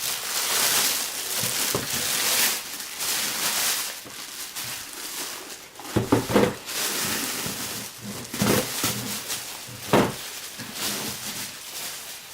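Packaging rustling and crinkling as the humidifier is unwrapped, with several knocks and taps as it is handled, the loudest about six and ten seconds in.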